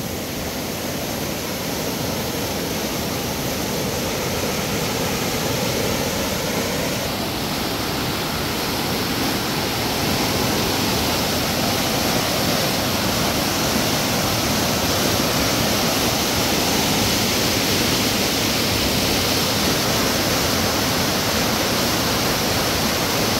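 Rushing water of a river swollen by heavy rain: a steady rush that grows a little louder about ten seconds in.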